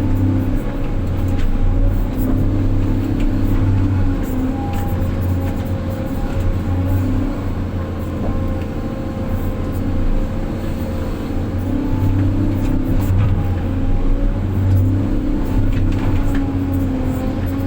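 Heavy diesel engine of earthmoving equipment running steadily, its low note swelling and easing every few seconds as the load changes.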